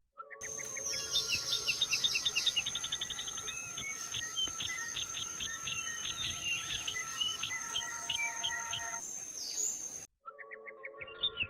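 Birds chirping rapidly, many short high calls over a steady high insect-like whine. The sound cuts off abruptly about ten seconds in, and similar chirping starts again a second later.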